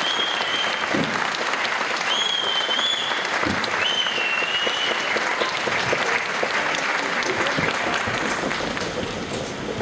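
Audience applauding after the dance ends, with three long high-pitched whistles in the first half.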